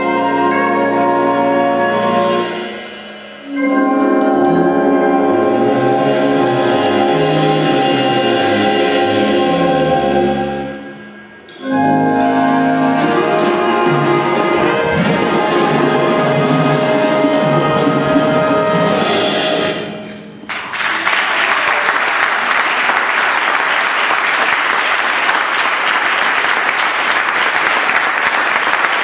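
Wind band of flutes, clarinets, saxophones, horn, euphonium, trombone and sousaphone with percussion, playing long held chords over a moving bass line. The music breaks off briefly twice and ends about twenty seconds in. Audience applause follows.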